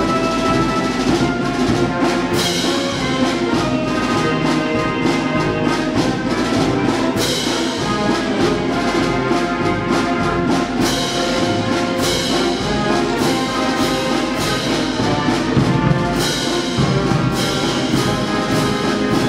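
Navy marching band playing a march: brass with a sousaphone bass line over a steady beat.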